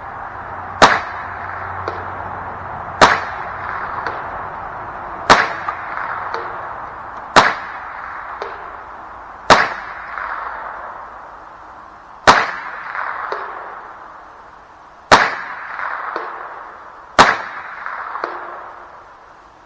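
A cheap .22 rifle firing eight single shots, one every two to three seconds. Each sharp crack is followed about a second later by a much fainter tick.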